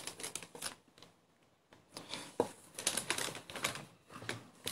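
Irregular light clicks and taps, pausing briefly about a second in.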